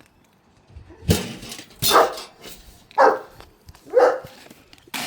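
A dog barking four times, about a second apart.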